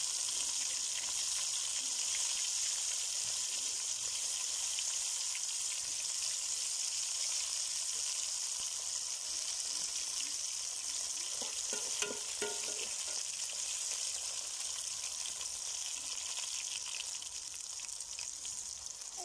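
Besan-coated eggplant slices deep-frying in hot ghee in an aluminium wok: a steady sizzle, easing slightly near the end, with a couple of brief knocks about two-thirds of the way through.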